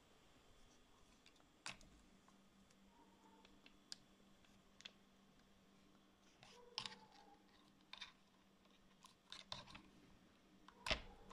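Scattered light clicks and taps of gel-built artificial nail tips being pulled off a practice training hand and set down on a wooden table, the loudest near the end, over a faint steady hum.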